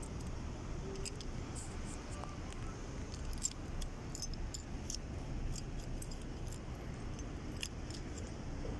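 A steady low rumble with light metallic jingling and clinking scattered through it.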